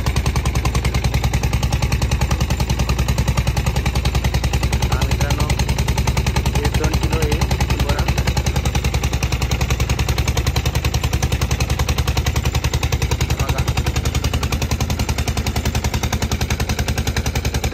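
Fishing boat's engine running steadily, with a rapid, even knocking beat that does not change.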